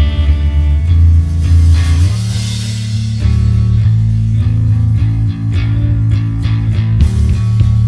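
Live rock band playing: electric guitar and bass guitar over a drum kit, with cymbal crashes and drum hits.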